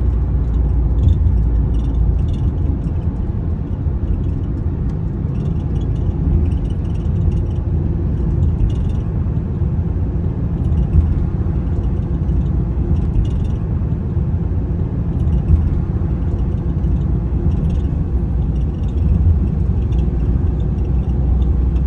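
Steady low rumble of a vehicle driving at road speed, heard from inside the cabin: engine and tyre noise.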